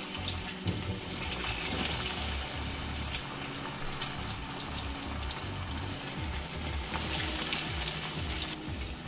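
Besan-coated fish deep-frying in hot oil in an iron kadhai: a steady sizzle full of small crackles that thins out near the end. Background music plays underneath.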